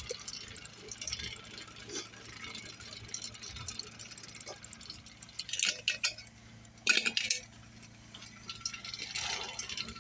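Light metallic clinks and rattles, with two louder clattering bursts about six and seven seconds in; no engine is running.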